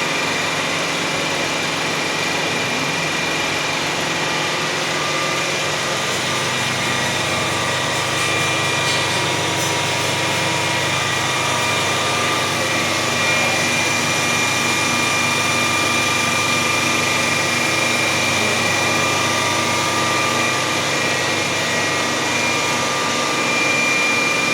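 A CNC horizontal boring machine running steadily: a constant mechanical hum with a thin, steady high whine.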